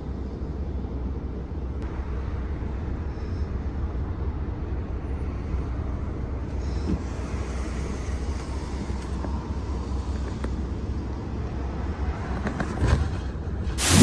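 Steady low rumble of a car's engine and tyres, heard from inside the cabin as it drives slowly over an icy, snow-covered road. Near the end there is a loud brief sweep that falls in pitch.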